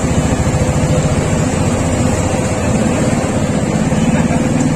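Street traffic noise: a steady low engine rumble from vehicles on the road.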